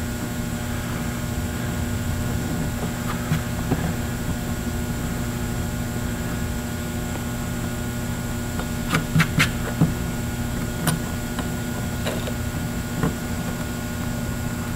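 Utility razor blade scraping across a plastic-weld bead on an HDPE tank to shave off the high spots. It gives a few short scrapes, most of them in a quick cluster a little past the middle, over a steady background hum.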